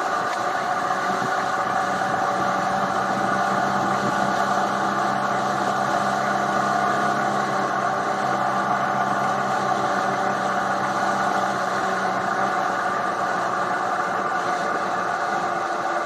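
2018 Triumph Tiger 800 XRt's three-cylinder engine running at a steady cruise, its pitch holding even.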